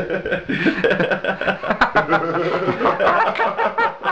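People laughing and chuckling, mixed with some talk.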